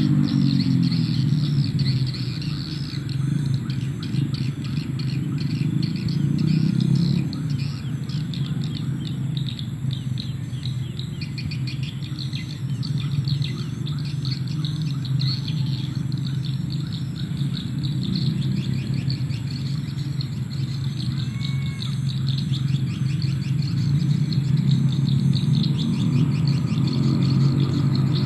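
Swiftlets chirping in rapid, continuous twitters around a swiftlet house, over a steady low hum.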